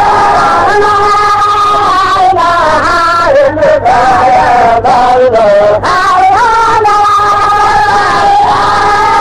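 Voices chanting a slow melody in long held notes that glide between pitches, with a few brief breaks around the middle.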